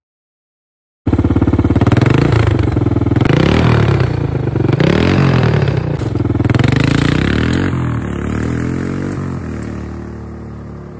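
ATV engine starting up about a second in, revving up and down several times close by, then pulling away and growing steadily fainter as the four-wheeler drives off.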